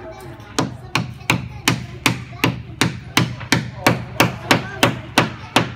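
A small claw hammer tapping nails into the wooden parts of a kit-built toy race car. About fifteen quick, even strikes, roughly three a second, begin about half a second in, each with a short metallic ring.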